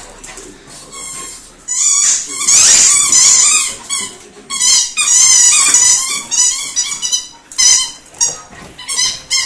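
A Jack Russell terrier, excited after its bath, giving repeated bursts of high, wavering cries. The cries get loud from about two seconds in.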